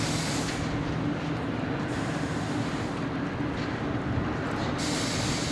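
Diesel railway engine running at a steady hum, with short bursts of air hiss about every two to three seconds.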